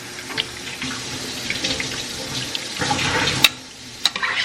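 Two cups of water pouring steadily into the soup pot for about three seconds, followed by a sharp clack and a couple of lighter clicks near the end.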